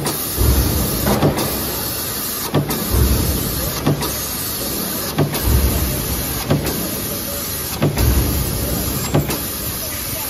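Mechanical power press running a progressive stamping die, striking about once every 1.3 seconds with a sharp knock and a heavy low thud at each stroke, over a steady machine running noise.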